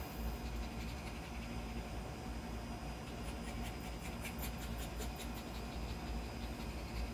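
Steady low room hum. About halfway through, a run of faint scratchy ticks as a small puppy shifts and turns around on its fabric-covered crate mattress.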